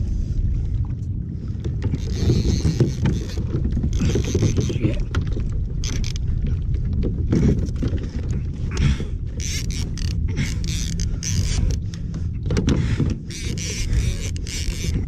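Wind rumbling on the microphone over water and a kayak hull, with repeated bursts of a fishing reel's mechanism clicking and whirring as a fish is played on the rod.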